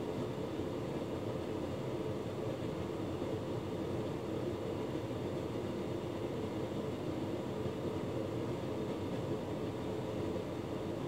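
Hotpoint Ultima S-Line tumble dryer running with a full load: a steady hum and rumble from its motor and turning drum.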